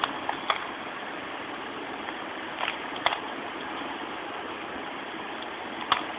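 A Rubik's cube's plastic layers being twisted: a handful of short, sharp clicks spaced irregularly, over a steady background hiss.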